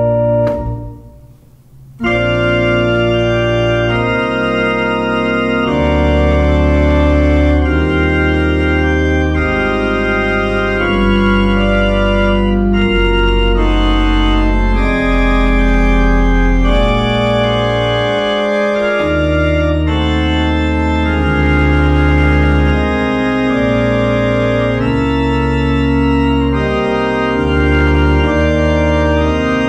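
Organ music: slow, held chords over deep sustained bass notes. It drops away briefly just after the start and comes back in about two seconds in.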